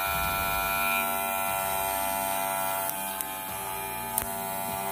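Vsmooth cordless hair clipper motor running at speed, a steady, pretty quiet electric hum. A single small click comes about four seconds in.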